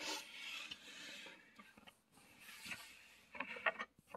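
Handling noise: a soft rubbing rustle, then a quick run of light clicks and rattles about three and a half seconds in.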